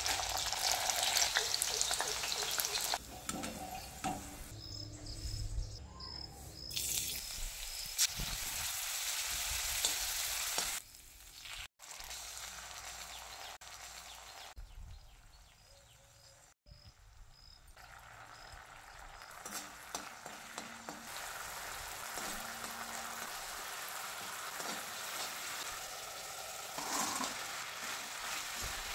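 Oil sizzling in a steel wok as food goes in, with a metal spoon stirring and scraping. The sizzle drops to a faint stretch in the middle, then comes back steady while fried cauliflower and capsicum are tossed in sauce.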